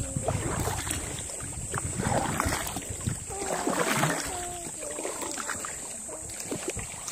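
Kayak paddle strokes: the blade dipping and splashing in calm lake water, the splash swelling about every two seconds.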